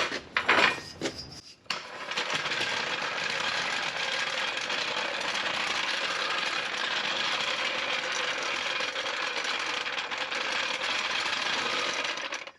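Floor jack being rolled across the floor on its wheels: a few knocks as it is handled, then a steady, rattling rumble from about two seconds in that stops near the end.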